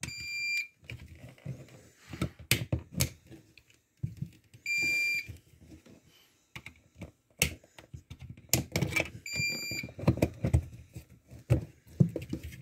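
Uninterruptible power supply (UPS) alarm beeping: a high-pitched steady beep about half a second long, three times, roughly every four and a half seconds. Between the beeps come clicks and knocks of a plastic electrical outlet being handled.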